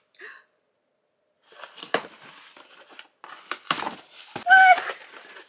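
A mailing package torn open by hand: crinkling and tearing of the wrapping in a run of short rips. Near the end comes a brief high squeal, the loudest sound here.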